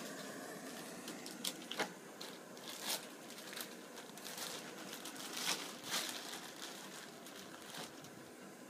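A clear plastic bag of trail mix crinkling as it is handled and opened, in a series of sharp crackles. In the first second the steady hiss of a canister camp stove burner fades out.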